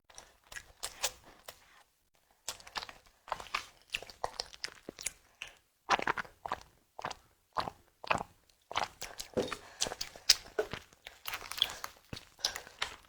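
Close-miked eating: chewing and biting into a tiger skin dessert, with irregular runs of crunching and smacking and a couple of short pauses.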